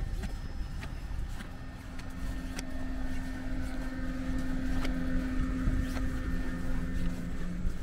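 Suburban electric train running, heard from inside the carriage: a low rumble with a steady electric hum that comes in about a second and a half in, and a few light clicks.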